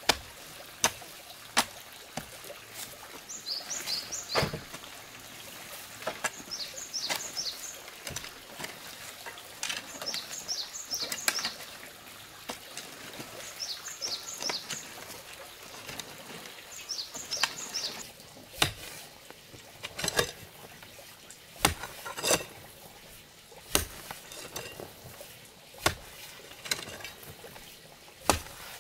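Hoe blade chopping into loose dirt, a sharp strike every second or two, more regular in the second half. A bird repeats a short phrase of quick high notes every three or four seconds through the first half.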